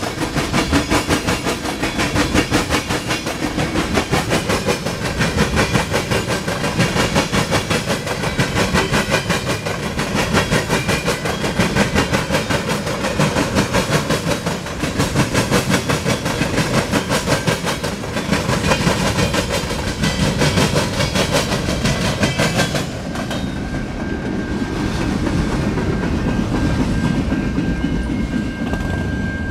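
Freight train of tank cars and boxcars rolling past, its wheels clacking in a rapid, steady rhythm over the rail joints. About three-quarters of the way through, the sound turns duller and a faint steady high whine comes in.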